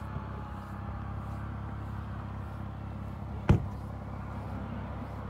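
Snowmobile engines running: a steady low hum, with a faint whine that slowly drops in pitch. One sharp knock about three and a half seconds in.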